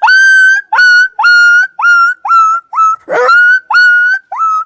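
A person imitating a small dog with his voice: about nine quick, high yelps in a row, each sweeping sharply up and then held at a steady pitch.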